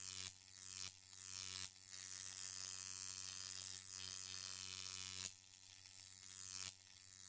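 Electric hum and buzz sound effect: a steady low mains-type hum with higher overtones under a crackling, sizzling hiss. The crackle cuts out and comes back abruptly several times.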